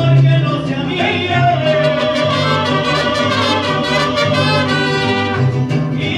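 Mariachi band playing and singing, with trumpets prominent.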